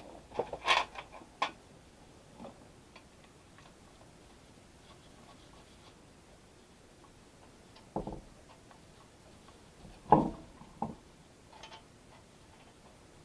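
A few scattered clicks and knocks: a quick cluster in the first second and a half, then single knocks about eight and ten seconds in, the one at ten the loudest.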